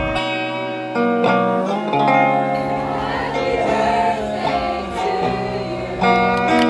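Background music: a guitar-led song, with a voice singing over the chords.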